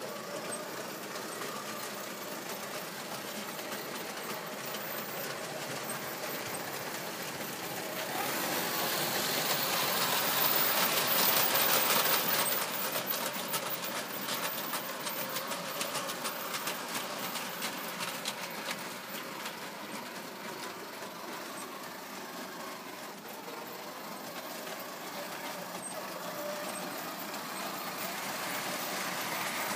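O gauge tinplate model train running on three-rail track: motor whirring and wheels clicking over the rail joints. It grows loudest about ten to thirteen seconds in as the train passes close, then eases off.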